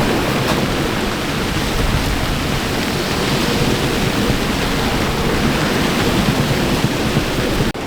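Loud, steady rush of wind and water in a squall at sea, with wind blowing across the microphone; it breaks off briefly near the end.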